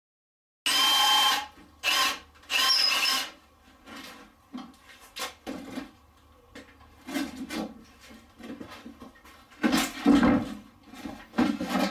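Cordless drill run in three short bursts, a steady whine each time, on the top cover of a steam engine. Softer rustling and knocks follow, with a louder spell of knocking and clatter near the end.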